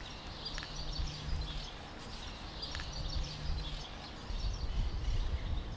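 Outdoor ambience: a steady low rumble with faint bird chirps, and a low hum that comes and goes.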